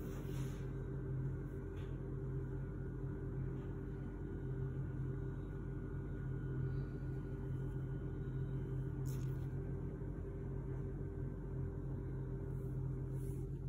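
A steady low hum with a faint higher whine above it, unchanging throughout, and a faint click about nine seconds in.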